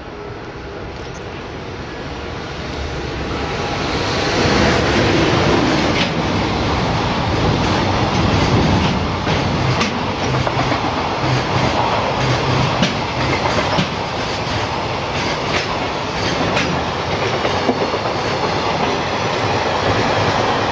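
EF210 electric freight locomotive and its train of container wagons passing on the line. The rumble builds as the train approaches and is loud from about four to five seconds in, then holds with a steady run of wheel clacks as the container flatcars roll by.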